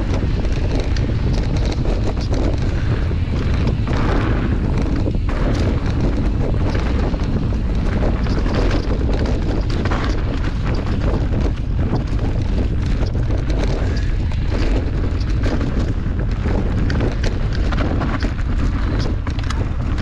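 Wind buffeting the microphone of a camera carried on a fast mountain-bike descent. It makes a loud, steady low rumble, with constant clicks and rattles from the bike and its tyres on the trail.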